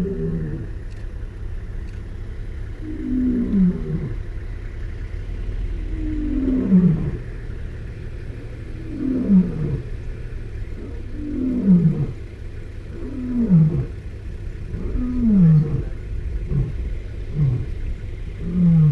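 Male lion roaring: a bout of about ten deep calls, each falling in pitch, spaced a few seconds apart at first, then coming shorter and closer together toward the end.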